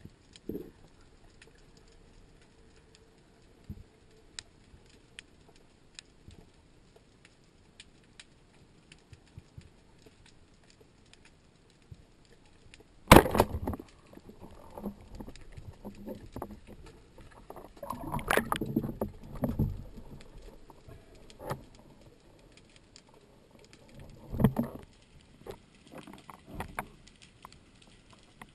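Underwater: faint scattered clicks and ticks, then about halfway a single sharp crack as a rubber-band speargun (a Thorpedo 93) fires, followed by irregular knocking and clattering of the shaft and line, with another loud knock a few seconds before the end.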